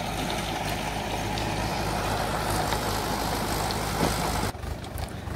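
Tractor engine running steadily as it drives a rotavator tilling the soil. The sound drops off abruptly near the end.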